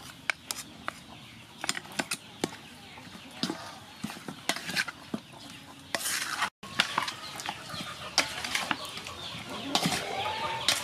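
A wooden spoon stirring raw chicken drumsticks in a metal bowl: repeated clicks and scrapes against the metal with wet squelching of the coated meat. Hens cluck now and then in the background.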